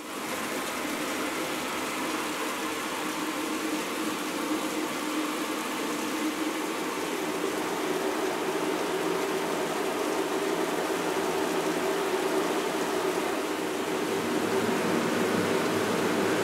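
Thin streams of water spraying down and splashing into a basin: a steady rushing hiss with a few low held tones under it, growing slightly louder near the end.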